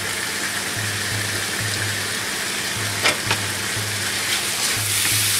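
Chicken pieces sizzling in oil in a frying pan, a steady hiss, with two sharp taps about three seconds in.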